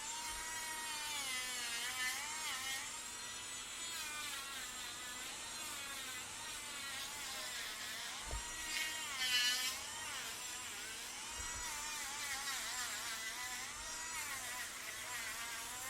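Electric nail drill running with a buzzing whine whose pitch repeatedly dips and recovers, briefly louder and brighter about nine seconds in.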